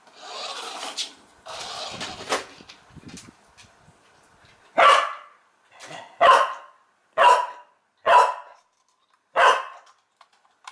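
A Shetland sheepdog barking five times, about one bark a second, starting about five seconds in. The barks come after a couple of seconds of rushing, scraping noise at the start.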